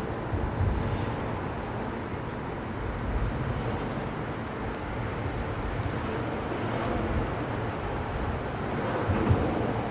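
Wind buffeting an outdoor microphone: a steady rush with gusty low rumbles. A few faint high chirps come through it now and then.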